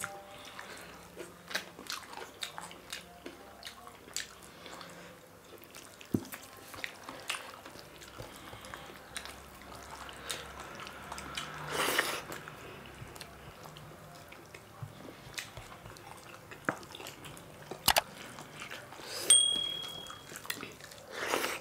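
Close-miked eating by hand: chewing and mouth sounds, with fingers mixing rice and curry on steel plates giving scattered small clicks and taps. A short electronic chime near the end.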